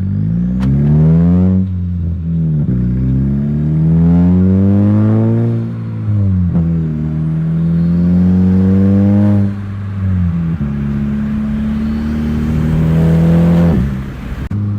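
Volkswagen MK6 Jetta GLI's turbocharged 2.0-litre four-cylinder, with a Unitronic Stage 2 tune and a 3-inch exhaust with only a small bullet muffler, pulling hard under acceleration. Its revs climb and then fall back sharply at each of several upshifts, later holding a steady pitch between shifts.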